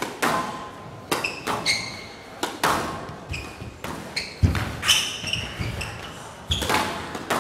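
A squash rally: the ball struck hard by rackets and smacking off the court walls in a quick run of sharp cracks and a few heavier thuds, with short high squeaks of sports shoes on the court floor between the hits.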